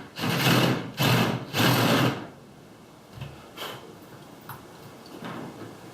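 Cordless drill boring into the wooden door in three short trigger bursts, each about half a second, then a few light knocks as the bit is handled.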